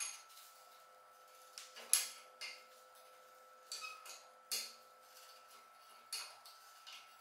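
Irregular metal clicks and clinks of a box-end wrench working on the rusted pivot nut of antique iron scissors as the nut is loosened. The loudest click comes about two seconds in.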